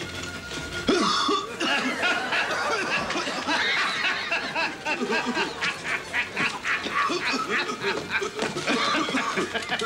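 A man laughing heartily, a long run of rapid 'ha-ha' pulses, about four a second, that starts about a second in.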